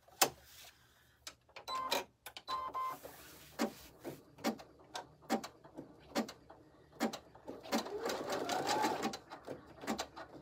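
Home embroidery machine beeping twice as it starts, then stitching, with sharp mechanical clicks at a steady rhythm of a little more than one a second as it tacks down an elastic tab in the hoop.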